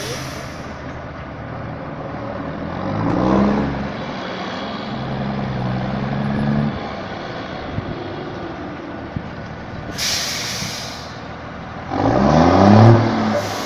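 Volkswagen Constellation truck's diesel engine being revved: the pitch rises about three seconds in, holds steady for a while, and rises again near the end in the loudest rev. About ten seconds in, and again at the very end, there is a short burst of air hiss.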